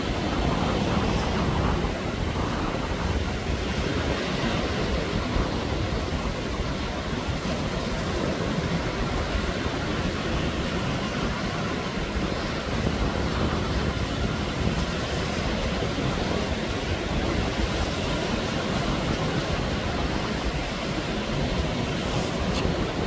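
Small waves breaking and washing up on a sandy beach, a steady rushing noise, with wind buffeting the microphone.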